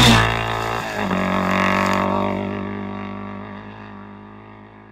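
A sustained distorted rock chord struck hard, then ringing out and fading steadily away over a few seconds.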